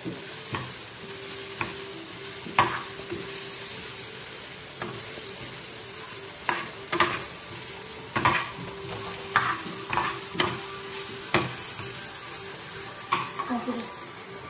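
Chopped onion, garlic, ginger and chillies sizzling in hot oil in a frying pan, with a spoon scraping and clicking against the pan at irregular moments as they are stirred.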